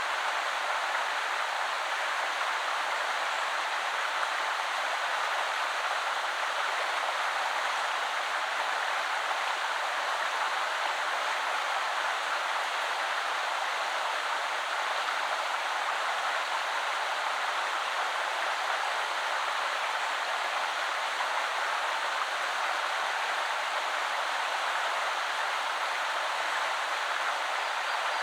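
River water flowing: a steady, even rush of running water, mostly hiss with little deep rumble.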